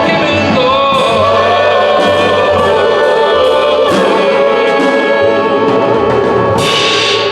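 Live band music: a sustained, wavering melody line held over a stepping bass line, with no sung words.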